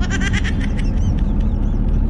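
Steady road rumble inside a moving car's cabin, with a quick run of short, high chirps in the first half-second and fainter ones after.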